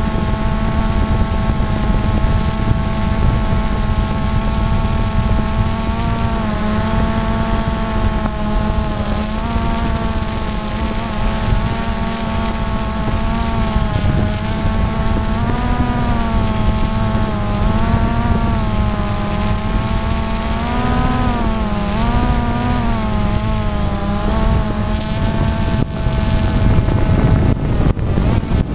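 Multirotor drone's electric motors and propellers whining, picked up by the drone's own camera over heavy wind rumble, the pitch wavering up and down as the throttle changes. Near the end the whine fades under louder wind rush.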